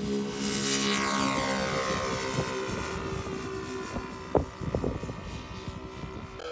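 Twin Saito FG-33R3 three-cylinder four-stroke radial engines of a large model F7F Tigercat running as the plane passes close and climbs away, the pitch falling as it goes by. A few low thumps come about four and a half seconds in.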